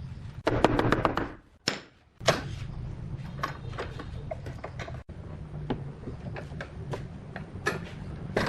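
Irregular knocks and taps, with a dense rattling cluster about half a second in and a sharp knock a little after two seconds, over a steady low hum.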